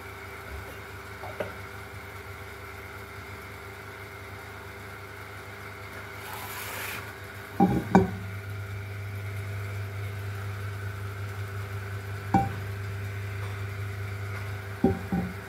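A metal frying pan knocks against the stove a few times: twice close together about halfway through, once about three-quarters through, and twice near the end. A steady hum runs underneath and grows a little louder after the first knocks, with a short hiss just before them.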